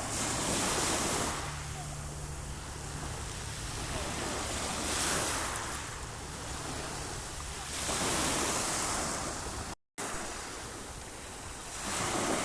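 Sea waves breaking and washing in, the surf swelling every three to four seconds, with a brief cut to silence near the end.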